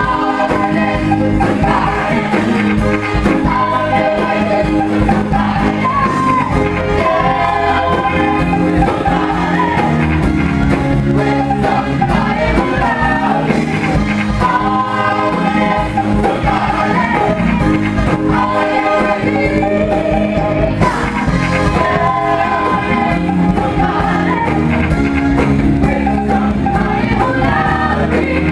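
Live band playing a song with a woman singing lead over guitars, bass and drums, loud and unbroken throughout.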